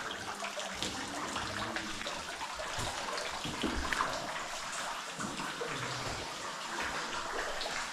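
Water running and splashing in a cave, a steady rush with scattered small knocks.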